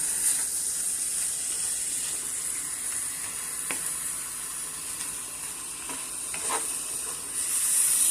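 Cubed beef frying in a pan on high heat, sizzling steadily, with a couple of brief scrapes or taps from stirring it. The sizzle swells near the end.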